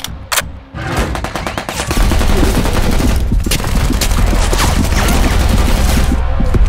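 Rapid automatic gunfire: a few single shots, then from about a second in a dense, sustained burst of shots with a heavy low boom, easing off near the end.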